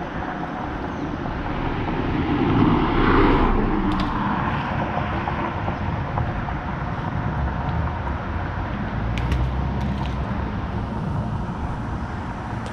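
Road traffic: steady traffic noise, with one vehicle growing louder and fading away about three seconds in, and a low rumble later on.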